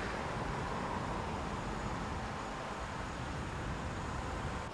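Steady outdoor street noise: a constant traffic hum and hiss with no distinct events.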